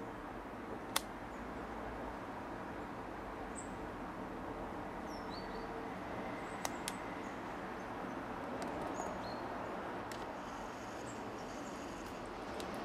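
Steady outdoor background noise with a few short, high chirps from small birds scattered through it. Three sharp clicks stand out, the loudest about a second in and two close together about halfway.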